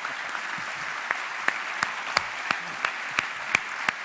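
Audience applause, with one loud clap standing out in a steady beat of about three a second from about a second in.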